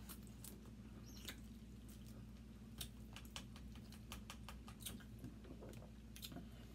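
Faint, irregular small clicks and crackles of people eating crab legs and shrimp by hand: shells being picked apart and the mouth sounds of chewing and sucking, over a low steady hum.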